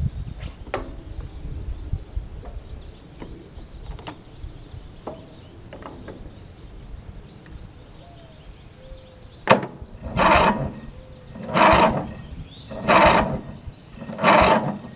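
After a sharp click, the starter motor cranks the lawn tractor's 18 hp twin-cylinder engine in slow, labouring surges about a second and a half apart. The starter itself sounds sound, but the battery is too flat to give it enough voltage to spin the engine properly.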